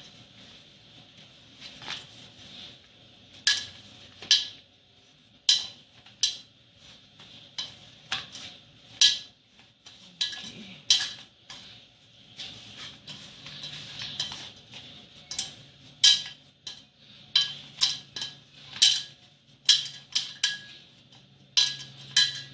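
Stainless steel mixing bowl knocking and clanking at irregular intervals as hands knead oily pastry dough in it, several knocks leaving a short metallic ring.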